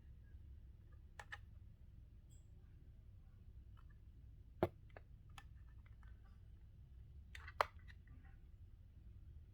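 A few sharp plastic clicks and taps as the bicycle light and power bank unit is handled and its micro USB charging cable is plugged in. The loudest clicks come about four and a half and about seven and a half seconds in, over a faint low hum.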